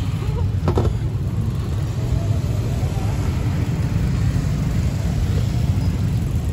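Steady low rumble of busy street background noise, with faint voices and one brief clink under a second in.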